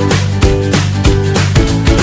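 Background music with a steady beat, about three beats a second, over a held bass and a simple melody.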